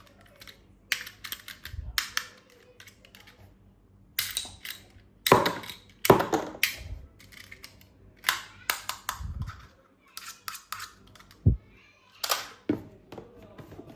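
Irregular clicks, knocks and short rustles of plastic toys and their packaging being handled and unboxed, with a few dull thumps.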